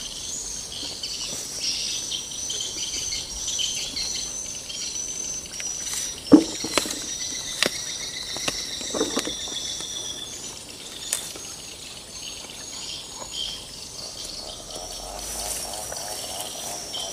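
Insects trilling steadily with a short high chirp repeated about twice a second, which fades out about ten seconds in. A few sharp knocks and clicks come near the middle, the loudest about six seconds in.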